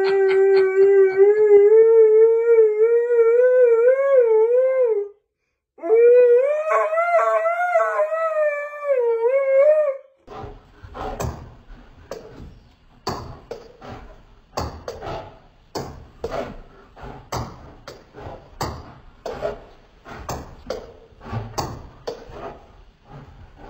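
A husky-type dog howling: two long howls with a wavering pitch that rises a little near the end, broken by a short pause at about five seconds. At about ten seconds the howling stops and a quieter run of sharp, irregular taps follows, about two a second, which are a ping-pong ball being played on a table-tennis table.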